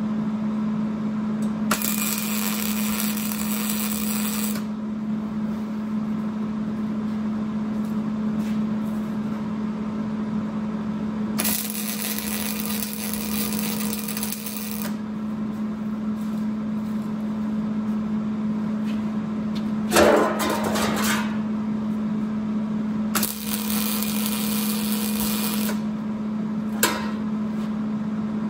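Electric arc welding on a steel trailer axle: three runs of crackling, hissing arc of about three seconds each, separated by pauses, over a steady low hum. A brief knock comes about two-thirds of the way through.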